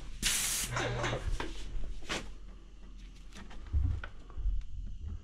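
Airless paint spray gun letting off a short hiss of spray, about half a second long, as a test of the fan pattern while the sprayer's pressure is being set. A few light clicks follow, with low knocks near the end from handling the sprayer.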